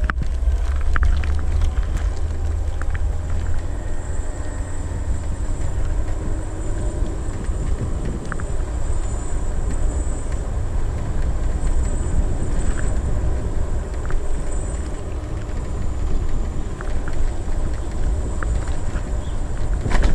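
Segway Ninebot ES1 electric kick scooter ridden along a street: steady wind rush over the camera microphone with a heavy low rumble, road noise from the small wheels, a faint high whine, and a few light rattles.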